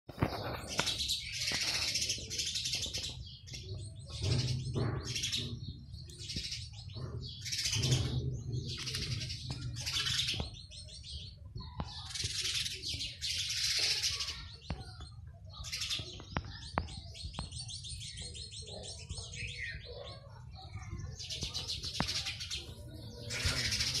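House sparrows chirping in a near-continuous run of loud, high chirps that come in clusters every second or two: the persistent nest-site chirping of the breeding season.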